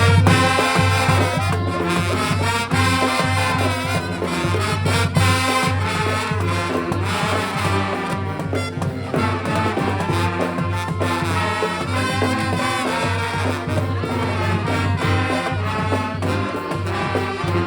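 Street brass band playing, several horns sounding together in harmony over a steady low bass line, with sharp percussive hits through it.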